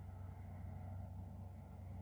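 A faint, steady low hum with no distinct events.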